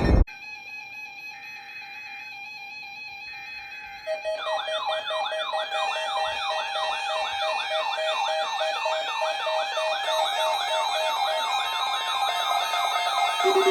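Several weather radio alarms sounding at once. First comes a steady tone with a slow on-off beep. About four seconds in, a louder, fast-warbling siren-like alarm at about three sweeps a second joins, and near the end a rapid low-pitched beeping starts.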